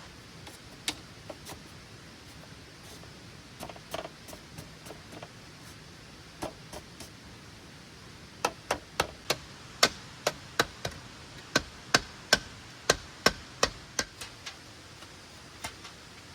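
A hand tool striking bamboo: a few scattered knocks, then a quick run of sharp strikes at about three a second through the middle, with a couple more near the end.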